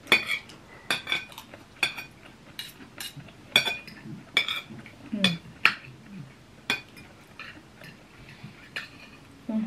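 Gold-coloured metal forks and spoons clinking and scraping on ceramic dinner plates while eating: about fifteen sharp, ringing clinks at irregular intervals.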